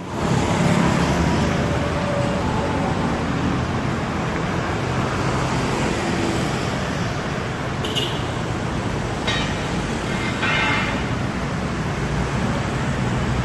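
City street traffic: a steady hum of passing vehicles and engines. A few short higher-pitched sounds cut in around eight to eleven seconds in.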